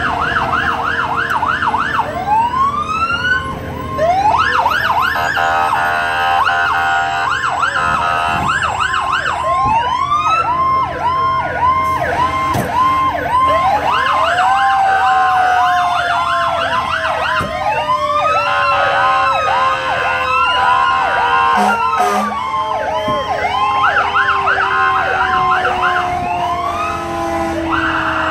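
Several fire truck sirens sounding at once as the trucks pass close by: fast repeating yelp sweeps overlapping slower rising-and-falling wails, with a lower tone that sinks slowly in pitch throughout.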